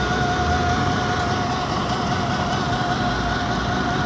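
Ikarbus diesel city buses idling at a stop, a low engine rumble under street noise, with a steady high whine running throughout.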